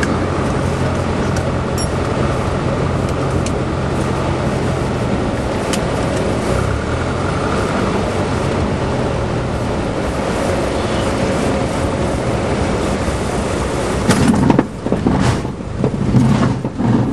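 Light single-engine airplane's engine and propeller heard from inside the cabin: a loud, steady drone with a low hum whose pitch shifts slightly partway through. Near the end the sound turns uneven, with louder irregular rumbling thumps.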